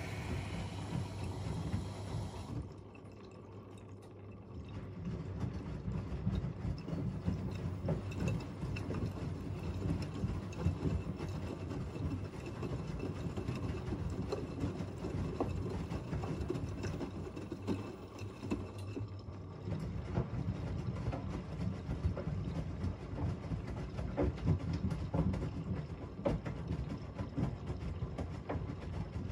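Two washing machines, an AEG Öko-Lavamat 88840 and a Miele Novotronic W 985 WPS, running together on easy-care wash: water sloshing and splashing in the tumbling drums. There is a brief quieter lull about three seconds in.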